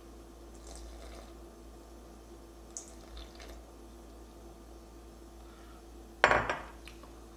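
Faint trickle and drips of milk-and-water mixture poured from a glass measuring jug into a glass jug of flour, with a few light clinks. About six seconds in, a sharp knock with a short ring as the glass Pyrex jug is set down on a stone countertop, the loudest sound.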